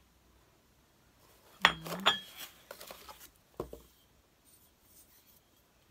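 Porcelain cup and saucer clinking and knocking as they are handled. There are a few sharp clinks about a second and a half in, softer handling noises after them, and one more clink a little before four seconds.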